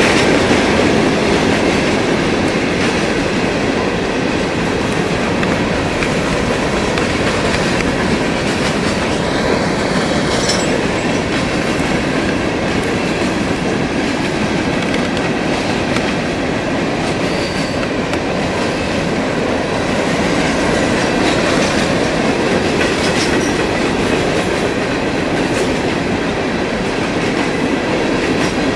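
Empty freight hopper cars of a coke train rolling past, steel wheels clacking over the rail joints in a steady, loud rush of rail noise.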